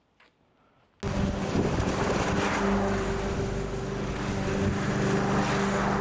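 Walk-behind petrol lawn mower engine running steadily at constant speed, starting abruptly about a second in after near silence.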